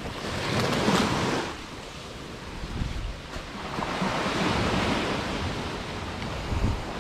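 Small waves washing up onto a sandy beach, surging about a second in and again around four to five seconds in, with some wind on the microphone.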